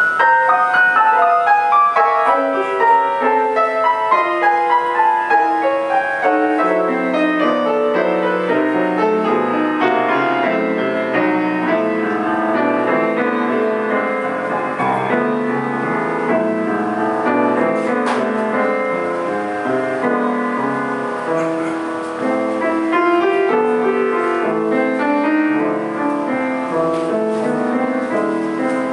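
Solo grand piano played live: a busy, flowing passage of many quick notes and chords, opening with a run that falls in pitch.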